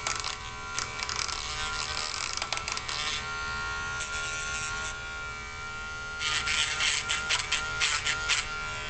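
Dremel rotary tool running at a steady whine, grinding and smoothing the freshly cut end of 16-gauge copper wire in two stretches of rasping contact, at the start and again about six seconds in.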